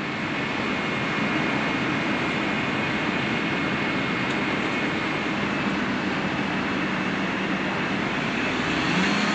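Motorhome engine running while the rig sits stuck in soft beach sand, under a steady rush of wind and surf.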